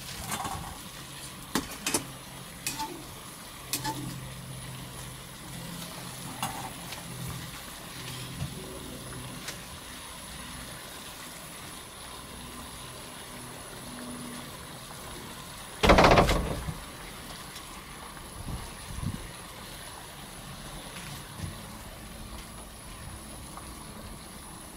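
Water at a rolling boil in a large aluminium pot, bubbling steadily, with a few light clicks in the first few seconds. One loud thump about sixteen seconds in is the loudest sound.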